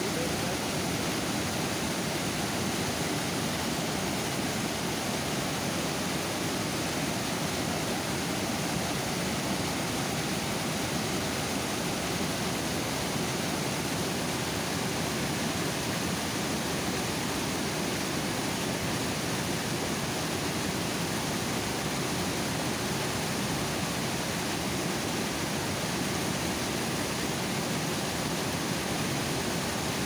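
Water overflowing a dam, a steady, even rush that does not change.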